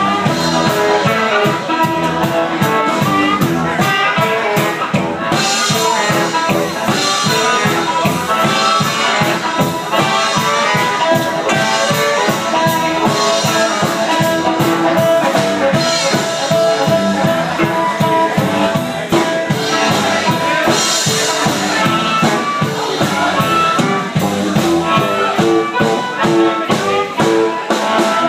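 A live band playing: a harmonica lead over electric guitar and drum kit, with a steady beat.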